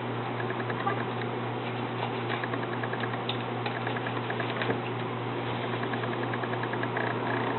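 Steady low electrical or fan hum under a hiss, with runs of faint, quick, even ticking.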